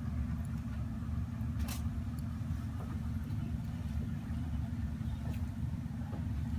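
Steady low hum with a single sharp click about two seconds in.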